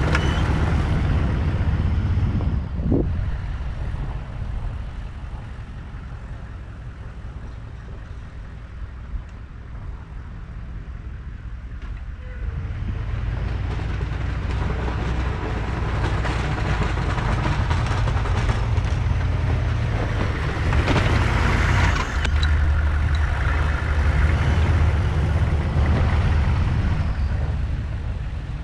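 1999 GMC K3500 pickup truck's engine running as the truck plows snow. The engine is louder at first, drops back a few seconds in, then works harder again from about halfway through until near the end.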